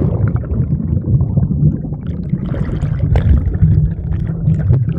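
Muffled underwater noise picked up by a phone held under the pool's water: a steady low rumble with bubbling and fizzing over it.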